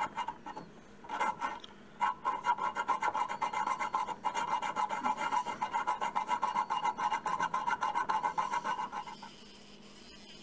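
Hand file rasping back and forth across the edge of a steel knife blank held in a vise, in quick, even strokes. It breaks off briefly twice near the start and stops about nine seconds in.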